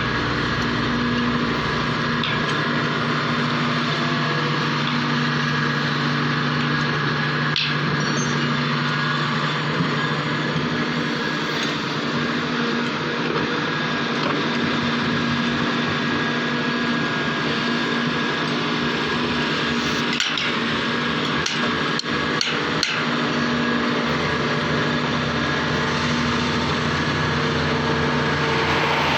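Large hydraulic excavator's diesel engine running steadily under load, with a few sharp knocks of rock and steel, one about a quarter of the way in and a cluster about three quarters through.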